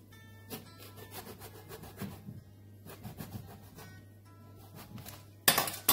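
Kitchen knife cutting through a whole eggplant: a series of short rubbing, crunching strokes as the blade works through the skin and flesh, then a louder scrape about five and a half seconds in.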